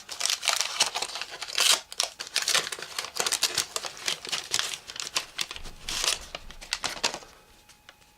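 Wax-paper pack wrapper and cardboard trading cards being handled, a busy crinkling and rustling with sharp little clicks that dies away about seven seconds in.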